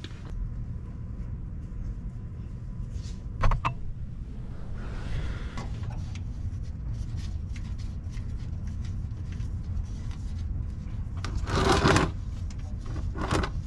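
A wrench working the oil drain plug under a car: a sharp metal clink and handling and rubbing noises over a steady low rumble, then a louder rushing noise near the end as the thin 0W-20 engine oil starts to drain into a plastic pan.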